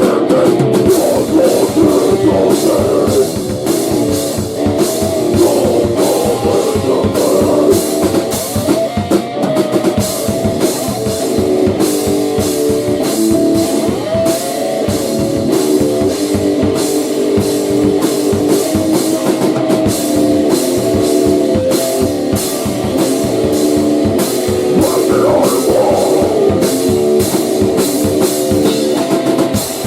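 Heavy rock band playing an instrumental passage: distorted electric guitar over a drum kit, with cymbal and drum hits at an even, driving beat.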